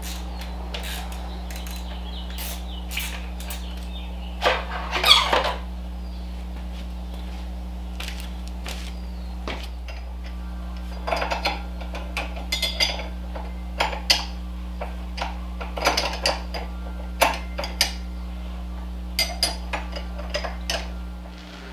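Metal hand tools and parts clinking and clattering, with a louder rattle about five seconds in and then a run of short sharp clicks and clinks, over a steady low electrical hum.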